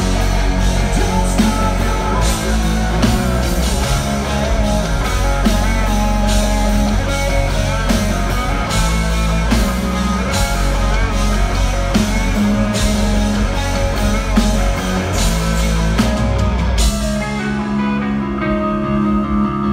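Rock band playing live: drum kit with frequent cymbal and drum hits over heavy bass guitar and electric guitar. About three seconds before the end the drums and bass drop out, leaving sustained guitar tones.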